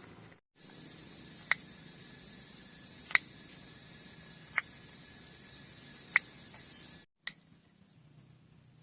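Steady, shrill chorus of crickets, with four sharp ticks evenly spaced about a second and a half apart; the chorus cuts in shortly after the start and stops abruptly about a second before the end.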